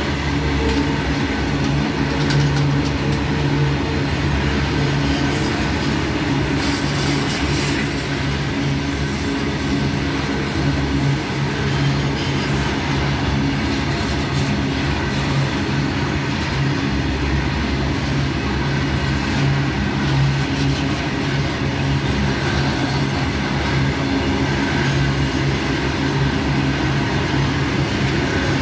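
Stone-loaded freight train of BOBYN hopper wagons rolling past close by: a steady rumble of steel wheels on rail, with brief high-pitched wheel squeals from about five to thirteen seconds in.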